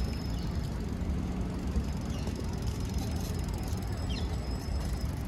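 Alstom Citadis 405 tram standing at the platform, giving a thin, steady high-pitched whine that breaks off about a second in and returns, over a low rumble of road traffic.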